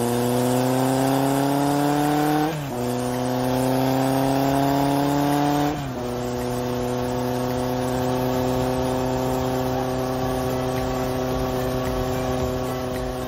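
Car engine accelerating up through the gears. Its pitch rises, drops at an upshift about two and a half seconds in, rises again, drops at a second upshift about six seconds in, then holds steady at cruising speed.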